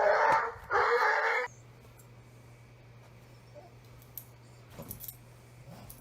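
A dog vocalizing loudly and continuously, which cuts off abruptly about a second and a half in. After that there is only a faint steady hum with a few soft taps.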